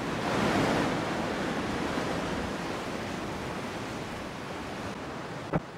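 Rough sea surf: a wave breaking on the rocks, its rush swelling in the first second and then slowly ebbing away. A brief click comes near the end.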